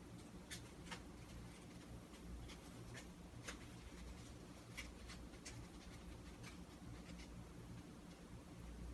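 Near silence with low room hum and faint, scattered ticks and scratches from hand crafting work on a toy car, such as a pen, brush or glue on cardboard.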